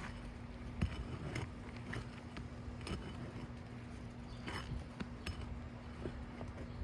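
Scattered light clicks and short scrapes of a tool working under aging asphalt shingles to break their sealant strips, over a steady low hum.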